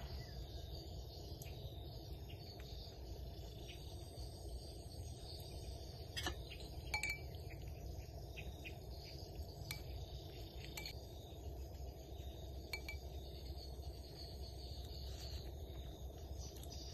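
Outdoor ambience: a steady insect drone with a few short bird chirps. A handful of light clicks from a spoon on a ceramic soup bowl are the loudest moments, about six and seven seconds in.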